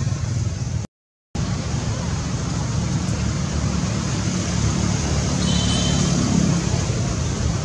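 Steady low outdoor background rumble, broken by half a second of dead silence about a second in.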